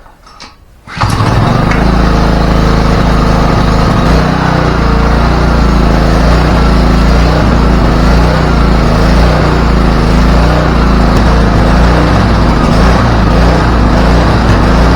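Honda 190 cc pressure-washer engine starts up suddenly about a second in and runs loud and steady. It runs well after fresh oil, a new plug and a new filter.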